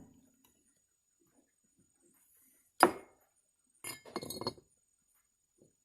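Small metal carburetor parts clinking on a workbench during reassembly: one sharp ringing clink, then a brief rattle of small clicks about a second later.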